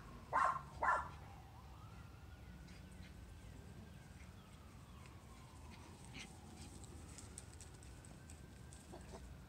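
A small dog yips twice in quick succession about half a second and one second in, while playing. After that a distant siren slowly rises and falls, faint under a few high chirps.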